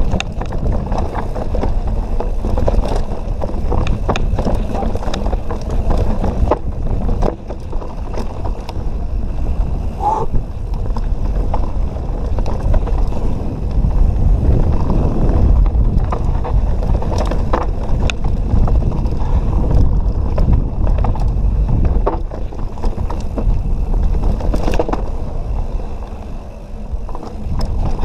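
Mountain bike being ridden over a rough trail: a steady rumble of tyres and wind buffeting on a GoPro mounted on the bike or rider, with frequent rattles and knocks from the bike over rocks and roots, and a short squeal about ten seconds in.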